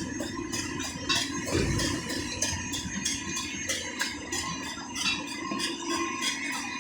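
Background music: sustained organ-like chords over a steady light beat.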